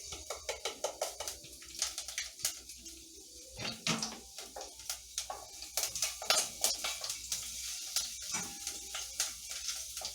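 Garlic frying in oil in a pot, with a cooking utensil clicking and scraping against the pan many times over a steady hiss.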